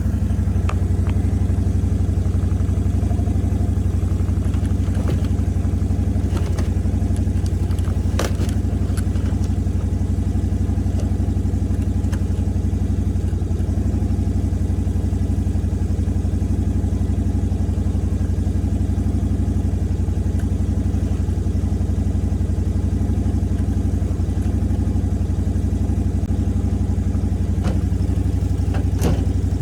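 A vehicle engine idling steadily, close by, with a few faint clanks about 8 seconds in and near the end.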